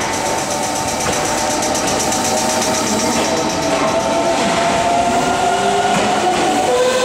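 Meitetsu 3500-series electric train pulling away from the platform. Its VVVF inverter and traction motors whine in several tones that rise in pitch as it gathers speed, over the rumble of the wheels.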